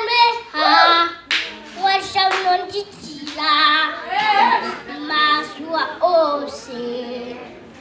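Young boy singing a gospel song into a handheld microphone.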